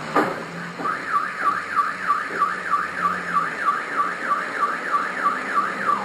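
A thump, then a car alarm going off: a loud electronic tone sweeping down in pitch over and over, about two and a half times a second.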